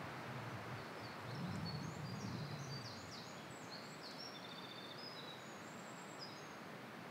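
Several small birds, startled, calling with many quick high chirps and short falling notes, over a steady hiss of forest background noise.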